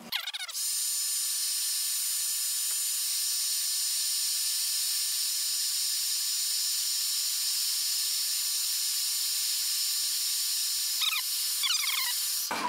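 Hand-held hair dryer running steadily, a whining rush of air with several high steady tones, switched on about half a second in and off near the end. It is blowing hot air to soften the adhesive under an iPad's glass.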